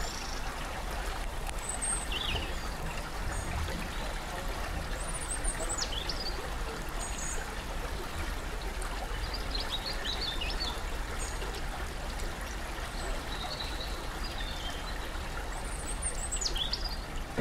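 A shallow stream running steadily over stones, with birds chirping and calling every few seconds.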